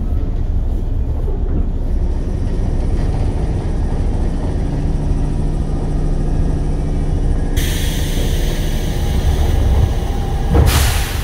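A JR West 103 series electric train car rumbling as it slows to a stop at the end of the line, heard from inside the car. About seven and a half seconds in, a steady air hiss starts as the train comes to a halt, and near the end there is a short, louder blast of air.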